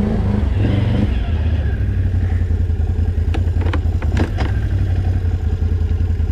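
Electric dirt bike being ridden over a rough, wet trail: steady, loud rumble of wind and the ride on the microphone, with several sharp clacks of the bike rattling about three to four and a half seconds in.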